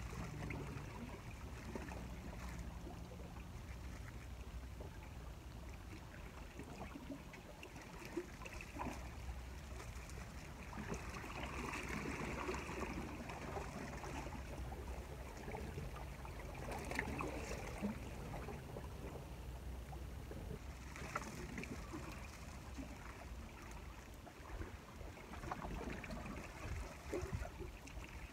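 Small sea waves lapping and trickling against shoreline rocks, over a low steady rumble, with a few faint scattered clicks.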